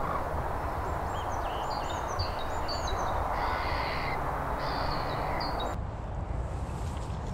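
Wind rushing over the microphone, with small songbirds singing short, repeated high chirps for the first five seconds or so.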